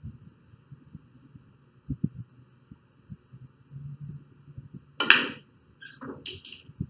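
Pool shot: the cue tip strikes the cue ball about five seconds in, followed by sharp clacks of the balls colliding and a dull thud near the end. A few soft low knocks come earlier, about two seconds in.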